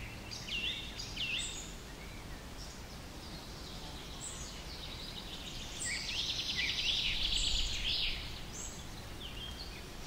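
Birds chirping: many short sliding chirps, with a longer trill from about six seconds in, over a steady low rumble of outdoor background noise.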